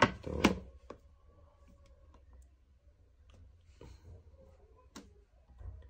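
Handling noise from a tablet and small objects on a table: two sharp knocks right at the start, then a few faint scattered clicks.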